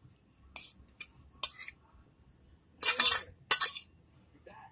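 Fork scraping and clicking against a plate in about five short strokes, the longest and loudest about three seconds in.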